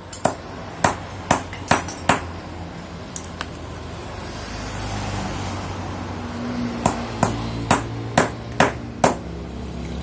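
Hammer tapping a front fork oil seal into a motorcycle's fork tube: two runs of five or six sharp metallic taps, a couple a second, with a pause of a few seconds between them.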